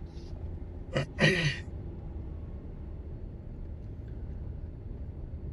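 Low, steady rumble of a vehicle driving slowly along a road.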